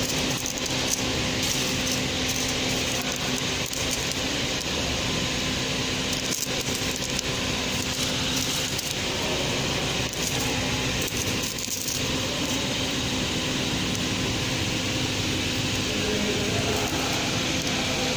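Steady mechanical hum with a constant low tone from a 240A three-side-seal packing machine running, with light crinkling and clicks of small plastic salt sachets being handled.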